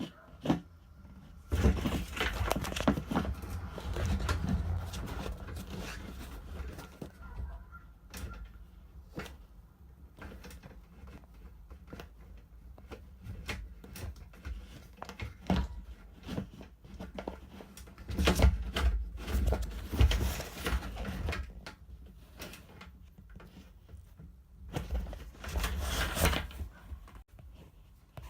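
Scattered clicks and knocks of hands handling parts, with a few stretches of low rumble.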